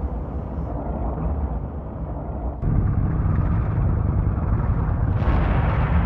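Deep rumbling noise with no clear tone. It jumps louder about two and a half seconds in and turns harsher near the end.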